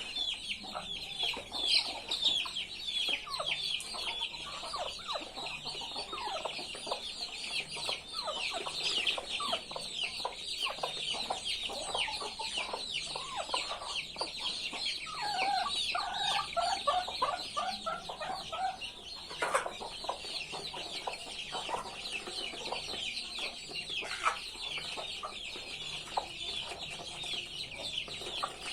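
Many chicks peeping without pause in short, high, falling calls, while adult chickens cluck now and then underneath, with a quick run of clucks about halfway through.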